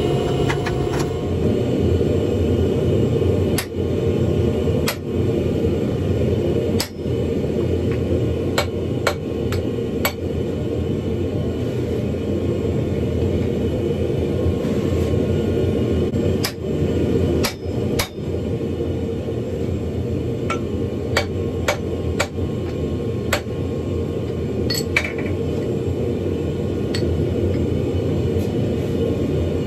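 Hand hammer striking glowing wrought iron on an anvil: sharp, irregular blows about one to two seconds apart, over a steady rushing noise from the forge.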